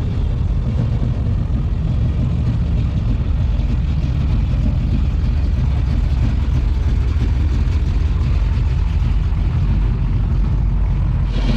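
Car engine running steadily with a deep low rumble.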